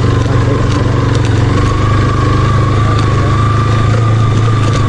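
Motorcycle engine running steadily at low speed as the bike rides slowly over a rocky gravel track, with a faint steady whine above the engine note.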